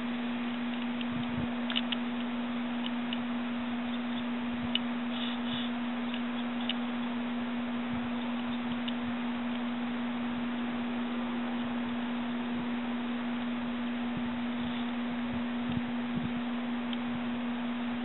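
A steady low hum holding one pitch, over a constant faint hiss, with a few faint short high chirps or ticks.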